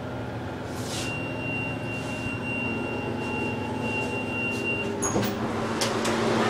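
Hydraulic subway elevator car with a single steady high electronic tone held for about four seconds over a constant hum of machinery. The hum gets louder about five seconds in.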